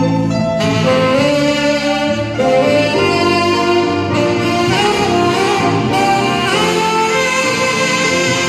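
Saxophone playing a jazz melody with held notes and sliding pitch bends, accompanied by a grand piano and an electric bass guitar.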